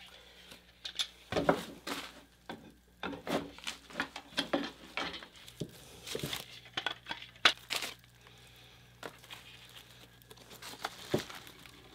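Bubble wrap and plastic packaging crinkling and rustling as a wooden bucksaw frame is handled on it, with scattered light clicks and knocks.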